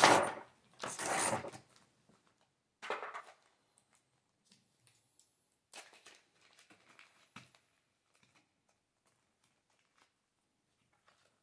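Small plastic parts bags crinkling in several short bursts as they are handled and sorted, loudest in the first second and a half, then a few faint taps.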